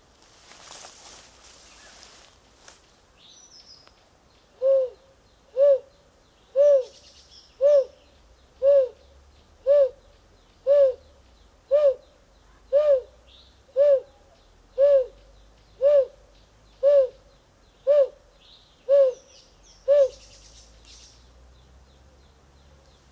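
A man imitating a male Narina trogon's call to draw a territorial male closer: sixteen low hoots about one a second, each briefly rising and falling in pitch.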